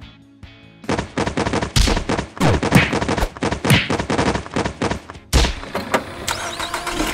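A rapid, irregular run of sharp crackling bangs, like a burst of gunfire, with a couple of falling sweeps in the middle, ending in a heavy thump about five seconds in.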